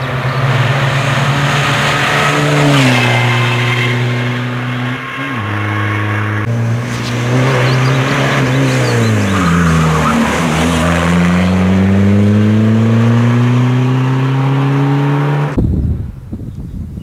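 Škoda Octavia TDI rally car's diesel engine driven hard on a tarmac stage, its pitch falling on lifts and gear changes and climbing again as it accelerates, over several edited passes. Near the end the engine cuts off abruptly to wind and outdoor background.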